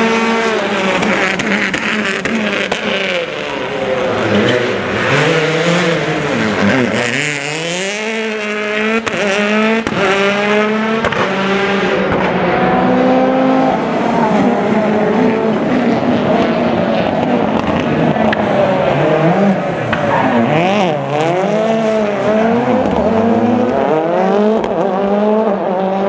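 Rally cars racing past on a circuit, their engines revving up and dropping back again and again through gear changes, with two or more cars sometimes heard at once.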